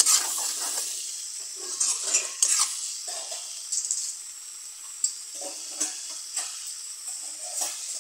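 Taro stems sizzling as they fry in oil in a metal wok, with a spatula scraping and knocking against the pan in short strokes at irregular intervals.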